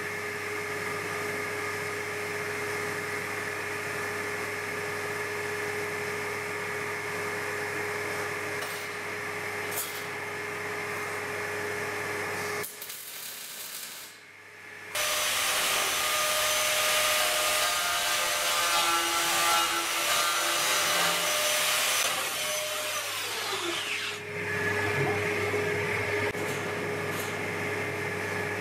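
MIG welding on a steel engine-bed frame: the arc runs for about nine seconds past the middle with a steady frying crackle, then stops. Before and after it only a steady machine hum is heard.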